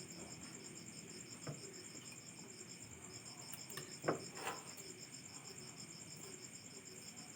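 Crickets chirping in a steady, evenly pulsing trill, with a few soft knocks around the middle.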